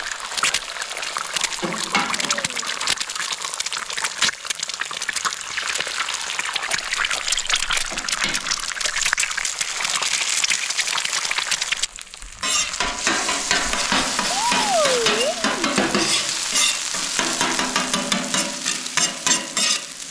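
Eggs frying in oil on a hot flat-top griddle: a dense, steady crackle and sizzle. It drops out briefly about twelve seconds in, then carries on.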